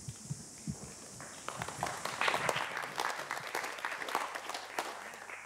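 Audience applause from a seated crowd, picking up about a second in, building and then stopping abruptly near the end.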